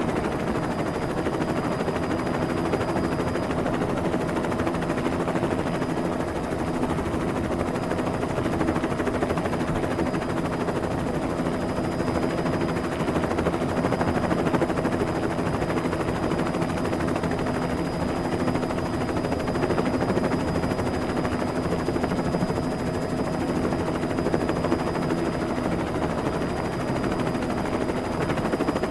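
Helicopter sound effect: a steady, rapid rotor chop with a constant engine tone, running without change.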